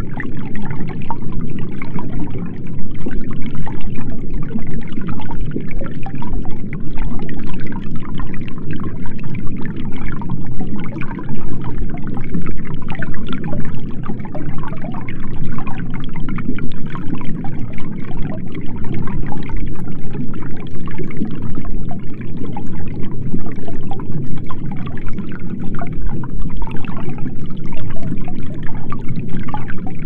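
Underwater ocean ambience: a steady, low, muffled rush of moving water, with a fine crackle running above it.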